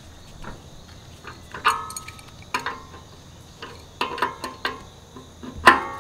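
Metal clinks and knocks of a hand wrench against a condenser fan blade's steel hub as the blade is worked loose from the motor shaft. There are about half a dozen strikes, each with a short ringing tone, and the loudest comes near the end.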